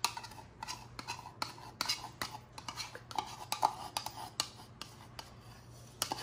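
Kitchen utensils and containers clinking, tapping and scraping irregularly as ingredients go into a blender jar, with a few brief ringing clinks about three to four seconds in. A faint steady low hum runs underneath.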